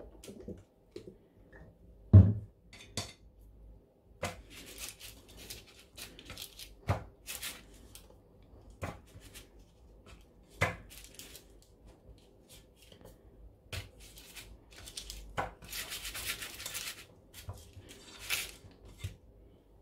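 Kitchen handling noises: parchment paper crinkling in a round metal baking tin and scattered knocks as oil is poured and patties are laid in and pressed down. The loudest is a low thump about two seconds in. Longer crinkling comes around two-thirds of the way through.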